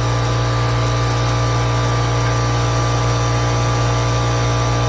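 A motor running with a loud, steady, even hum that does not change in pitch or level.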